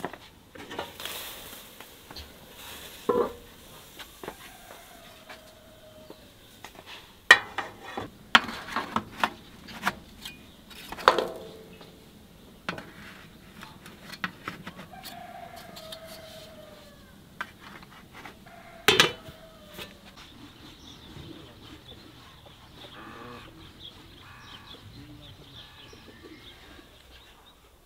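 Aluminium cookware clattering: scattered metal knocks and clinks as the tiers and lid of a steamer pot are handled and set down, several of them sharp. Chicken sounds near the end.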